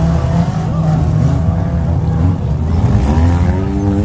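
Several demolition derby cars' engines running together and revving, their pitch climbing over the last second or so.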